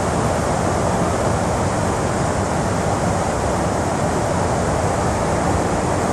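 River water rushing steadily over a shallow riffle, an even wash of noise.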